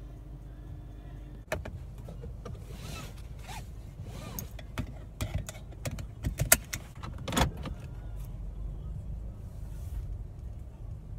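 Car seatbelt pulled out across the body and buckled: its webbing rustling, the metal tongue rattling and the buckle clicking, the loudest clicks about six and a half and seven and a half seconds in. A steady low rumble of the car running lies underneath.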